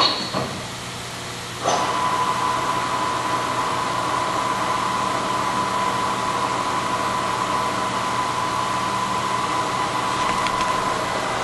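Haas VF-4B vertical machining center's spindle running through a speed change in low gear. Its high whine cuts off just after the start, and after about a second and a half of quieter running a new steady whine comes in abruptly and holds, over the machine's constant background hum.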